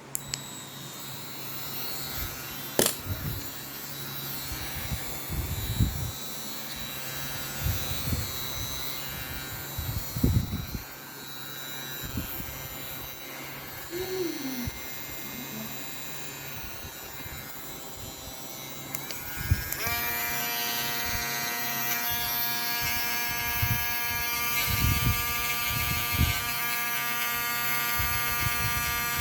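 Small battery-powered mini grinder's motor running with a steady high whine. A little past two-thirds of the way through it speeds up, its pitch stepping higher and louder. Scattered low knocks come from handling.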